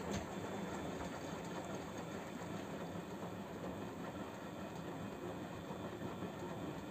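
Samsung WF0800NCE washing machine turning its drum on the drum-clean cycle: a steady mechanical run with a low hum that starts suddenly.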